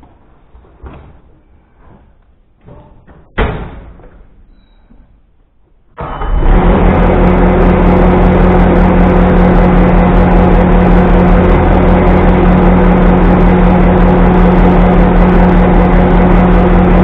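A single loud clank, then a motor-driven machine starts abruptly and runs steadily and loudly with a constant hum.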